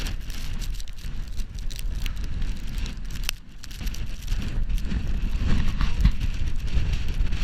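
Blizzard wind buffeting the microphone in gusts, a heavy rumble with a brief lull about halfway, and scattered sharp ticks over it.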